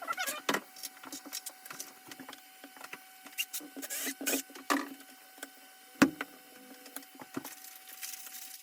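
Hand work on a window frame: scattered clicks, scrapes and light taps, with one sharp knock about six seconds in.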